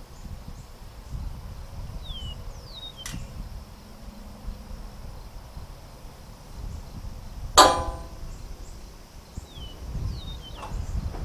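A single sharp metallic clang that rings on briefly about seven and a half seconds in, over a low wind rumble on the microphone. Short falling bird whistles come twice, once early and once near the end.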